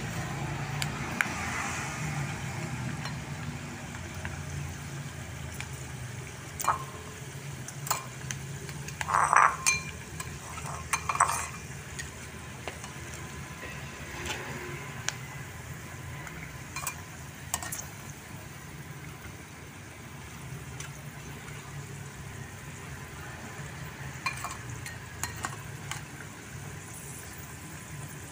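Jengkol pieces frying in oil in a metal pan: a steady sizzle, with metal tongs clinking against the pan every few seconds as the pieces are turned and lifted out, the loudest clinks about nine to eleven seconds in.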